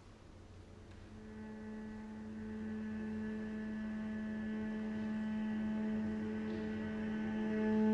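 Bowed cello sustaining one long drone note that swells in from near silence about a second in and grows slowly louder.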